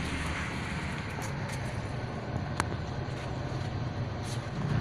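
Shimizu electric water pump running with a steady low hum while delivering no water, even though it has been filled and primed. A single sharp click about two and a half seconds in.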